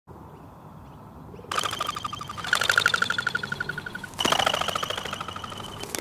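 Crested pigeons taking off, each wingbeat giving a fast, pulsing whistle of a low and a high note, the high note made by the narrow modified eighth primary feather. It starts about one and a half seconds in, with more birds joining about a second later and again near four seconds. This is the wing-whistle alarm that warns other birds to flee.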